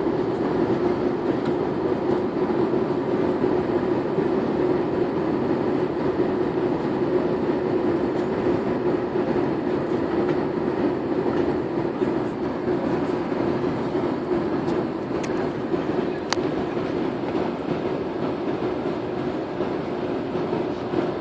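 Steady cabin noise of an airliner: a constant rumble and roar of engines and airflow heard from a passenger seat, with a faint click about sixteen seconds in.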